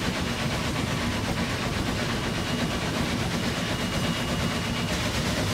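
SNCF 141 R Mikado steam locomotive, oil-fired, running at speed, heard from its cab as a steady, even din with no single event standing out.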